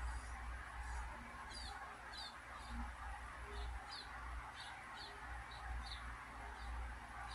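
A bird chirping: short, high, falling chirps repeated at uneven spacing, about two a second, over a low steady hum.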